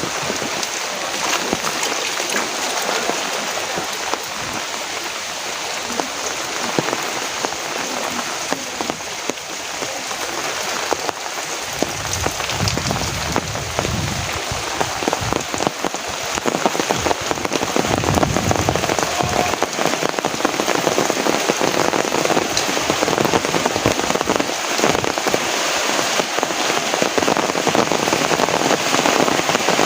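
Heavy rain falling, a dense steady patter of drops that grows louder about halfway through, with a low rumble for a few seconds in the middle.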